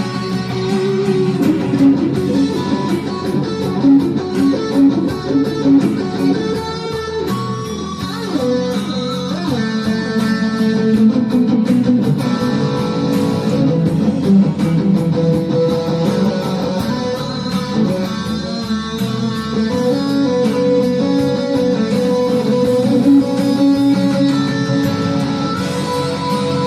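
Guitar playing an instrumental piece, plucked and strummed notes over a steady beat.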